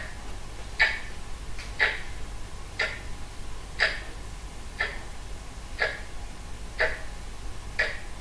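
Clock ticking steadily, about one crisp tick a second.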